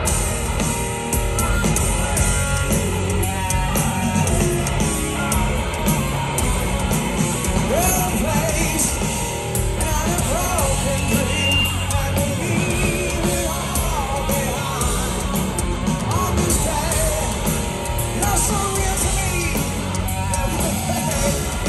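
Hard rock band playing live and loud: distorted electric guitars, bass and drums under a singer's voice, heard from within the crowd.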